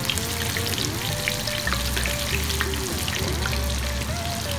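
Breaded shrimp deep-frying in hot oil: a steady sizzle speckled with small crackles and pops. Soft background music with held notes and a low bass pulse plays underneath.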